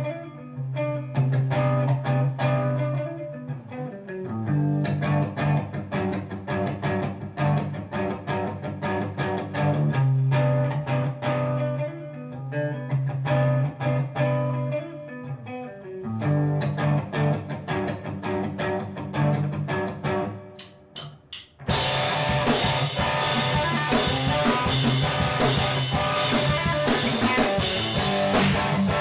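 Electric guitar playing a repeating figure over low notes. About two-thirds of the way in the sound dips, a few sharp clicks follow, and a drum kit with cymbals comes in, playing along with the guitar to the end.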